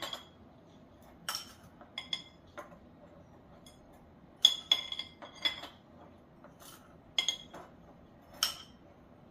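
Metal utensil clinking against a baking dish while spreading sugar evenly over the apples: a string of short, ringing clinks in small bunches, loudest about four and a half seconds in.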